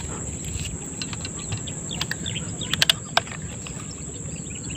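Open-air lakeside ambience: a steady high-pitched insect drone with scattered short bird chirps over a low rumble. A few faint clicks come about three seconds in.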